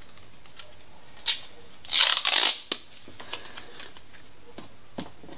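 Adhesive tape being pulled off the roll and torn, a loud rasping rip about two seconds in after a shorter one, followed by a few light clicks and taps as the strips are handled.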